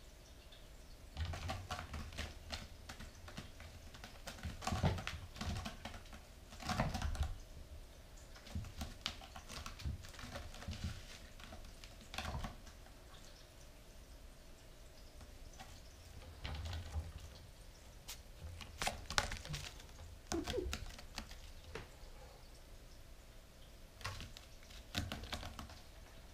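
Bengal kitten's claws scratching and catching on a sisal-rope scratching post as it climbs, in irregular bouts of clicking scratches with soft thuds.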